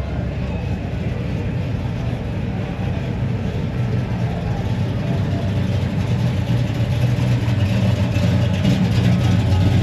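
A car engine running with a low, steady rumble that grows gradually louder.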